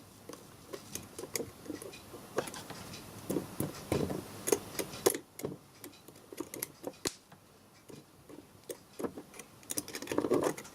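Irregular small clicks and taps of wire leads being touched against surface-mount components on an RCD's circuit board, with light handling noise. The parts are not burning out: no pop is heard.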